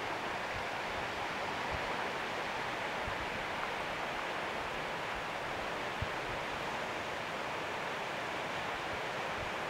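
Steady rushing noise of flowing water, with a few faint low thuds.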